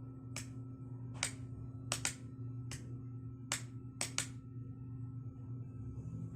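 Eight sharp clicks from a signal light's switch, switched on and off in pairs. The long and short gaps spell Morse code C (dash-dot-dash-dot). A steady low hum runs underneath.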